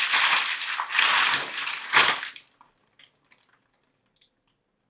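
A plastic shipping bag crinkling and rustling as it is waved and handled, for about two seconds, then it stops abruptly; a few faint ticks follow in near silence.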